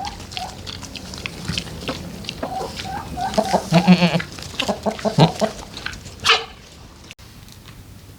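Goats bleating, one long wavering bleat about four seconds in, with chickens clucking and scattered small knocks. The animal calls die down after about six and a half seconds.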